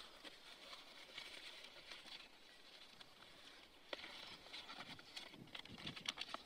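Crumpled paper rustling and crackling as a folded sheet is opened and handled; the crackles are faint and come in a denser run from about four seconds in.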